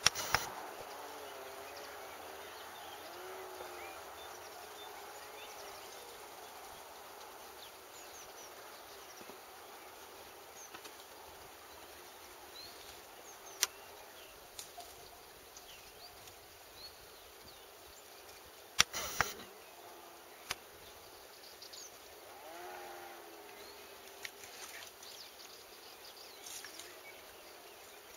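Outdoor ambience: a steady faint background hiss with a few faint wavering distant sounds, broken by several sharp clicks and knocks from the camera being handled, the loudest a little past the middle.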